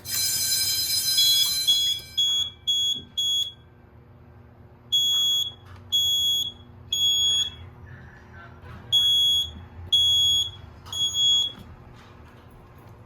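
Fire alarm going off suddenly: a harsh buzzing tone for about two seconds, then a high-pitched beep, first a few quick short beeps and then two groups of three half-second beeps with a pause between them, the temporal-three evacuation pattern.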